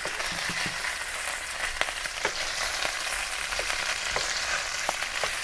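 Cubes of lamb sizzling in hot oil in a stainless steel frying pan as they brown, with a steady hiss and a few sharp pops and clicks scattered through as the pieces are turned over with a wooden spatula.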